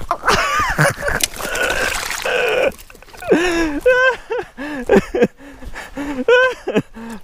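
A man's excited wordless shouts and grunts as he scrambles to land a hooked largemouth bass. In the first two and a half seconds they ride over scuffling and rustling noise, and after that they come as short, separate cries.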